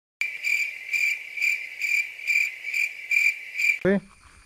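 Cricket chirping: a steady high trill that swells about twice a second, then cuts off near the end.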